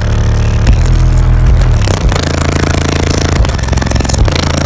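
Bass-heavy music played extremely loud through four Crossfire XSV2 18-inch subwoofers powered by two Soundigital 12k amplifiers, heard inside the truck cab. The deep bass notes change a few times, and the cab's roof and panels rattle under the pressure.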